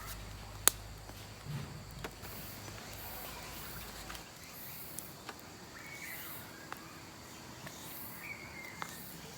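Quiet campsite ambience of insects and a few faint bird chirps, with a single sharp click about a second in and a few small scattered clicks and knocks of handling.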